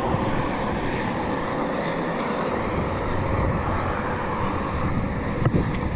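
Steady rush of road traffic passing on the bridge, with one short click about five and a half seconds in.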